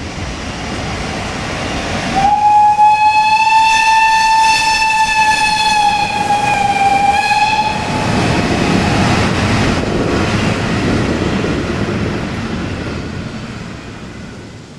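A train horn sounds one long steady note for about five seconds, its pitch sagging slightly just before it stops. A rolling rumble of the train follows and fades away.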